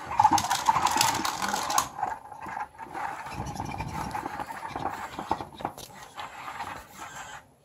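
Spin Master BB-8 toy droid moving under its own power: its motors and gears whir, with scattered clicks and scrapes. The sound is loudest for the first two seconds, then quieter.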